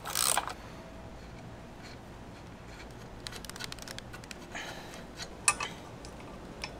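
A ratchet wrench clicking briefly on an exhaust hanger bolt, then scattered light metal clinks and rattles as the hanger and its nut are handled. A single sharp click comes about five and a half seconds in.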